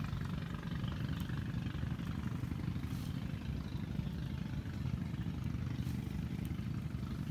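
A small engine running steadily at idle, a continuous low rumble.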